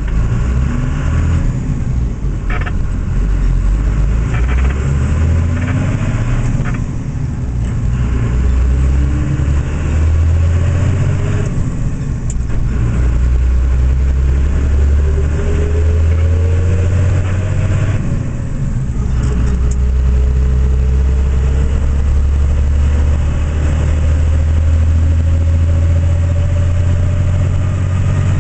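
Cummins ISB 5.9-litre diesel of a 2000 Ford F-650 tow truck heard from inside the cab, pulling under acceleration with a deep rumble and road noise. The engine note rises, breaks off and drops, then climbs again several times as the six-speed manual gearbox is shifted up through the gears.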